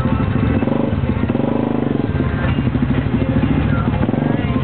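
Side-by-side UTV engine running under load as it crawls up a rocky dirt trail, its pitch rising briefly about a second and a half in.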